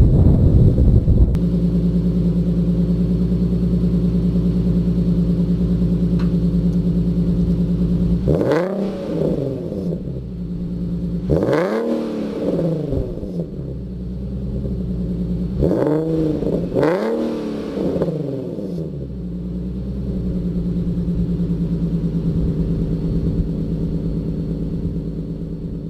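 Infiniti Q50S's 3.7-litre VQ37VHR V6 idling through a Rev9 Flowmaxx axleback exhaust with resonated test pipes, blipped to quick revs four or five times in the middle, each rising and falling back, then settling to a steady idle.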